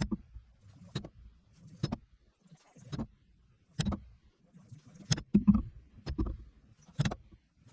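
Repeated sharp knocks, about one a second, each with a dull low thud, as from striking or tapping on a workbench.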